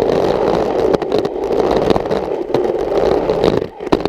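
Skateboard wheels rolling on concrete in a skate bowl: a steady, loud rumble with scattered clicks and knocks from the board. Near the end the rumble cuts out for an instant and returns with a knock.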